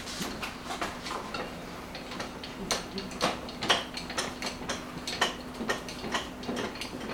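Handling noise: irregular light clicks and rustles as gloved hands work a plastic bag of piercing supplies, with one sharper click a little past halfway, over a faint steady hum.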